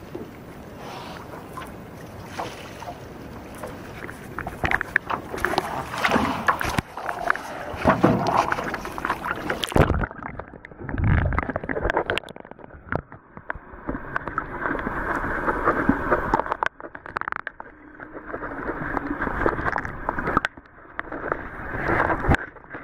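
Sea water splashing and sloshing around a camera held at the surface. About ten seconds in, the camera goes under and the sound turns suddenly muffled, leaving a dull underwater rushing and bumping.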